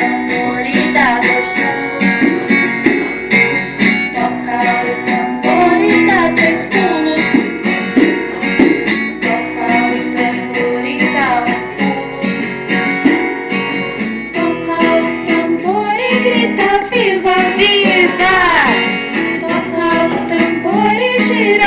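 A children's song playing: singing over a plucked-string accompaniment with a steady beat.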